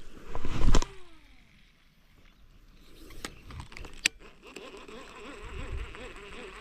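A fishing rod being cast. A loud swing is followed by falling whizzing tones as line pays off the reel, and a sharp click about four seconds in. After that a faint wavering whine pulses about four times a second, as from a reel being wound in.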